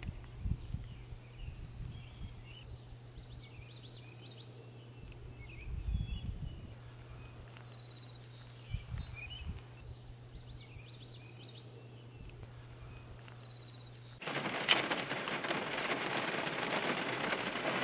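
Quiet outdoor ambience with small birds chirping now and then and a few low rumbles. About fourteen seconds in it switches suddenly to heavy rain pelting a car's roof and windows, heard from inside the car.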